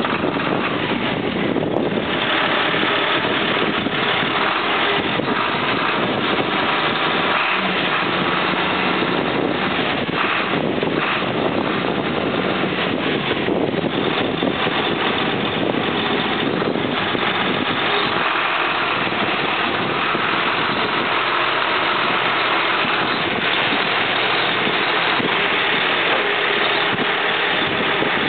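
John Deere 8640 articulated tractor's turbocharged six-cylinder diesel engine running steadily at idle; later the tractor is driven across the gravel lot.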